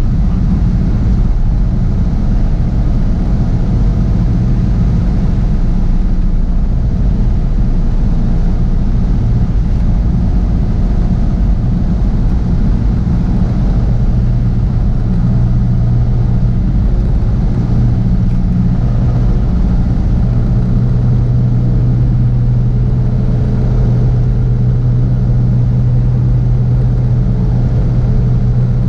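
Cessna 172SP's four-cylinder Lycoming IO-360 engine and propeller droning steadily, heard from inside the cabin with airflow noise, while the plane descends on approach to the runway. The engine note changes slightly about halfway through.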